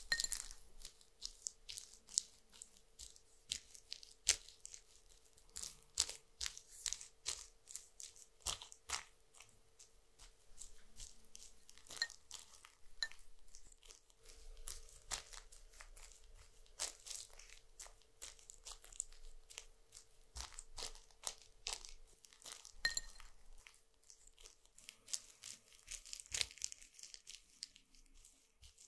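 Brush spreading thick gel over a mannequin's plastic face: sticky, wet crackles and clicks at an irregular pace, with a few light clinks.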